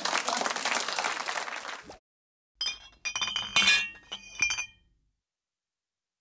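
Background chatter cuts off about two seconds in; then a short production-logo sting of glassy chimes and clinks, in three or four quick bright strikes that ring briefly and stop.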